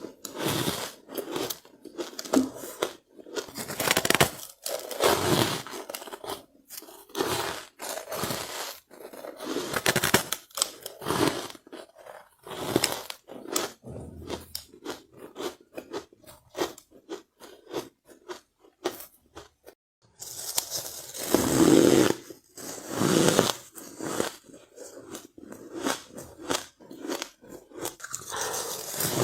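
Close-up biting and chewing of soft powdery ice: repeated crisp crunches in irregular bursts, with a denser run of louder bites about two-thirds of the way through.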